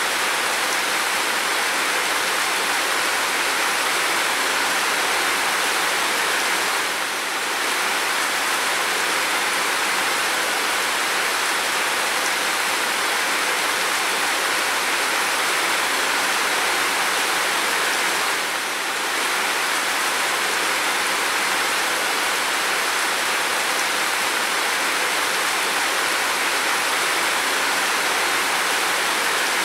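Steady rain falling on a window and roof, an even hiss with no separate drops standing out. It briefly softens twice, about a quarter and about two-thirds of the way through.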